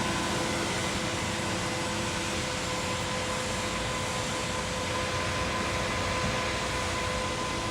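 Concrete pump running steadily: a constant mechanical drone with a steady whine over it.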